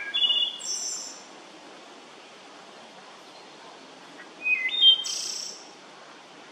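Wood thrush singing two song phrases about four seconds apart, each a few clear notes followed by a higher trill.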